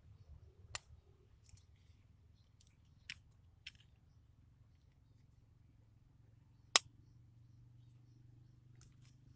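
Sharp metallic clicks of locking pliers being handled and set: a few light clicks, one loud snap about seven seconds in, and two quick clicks near the end.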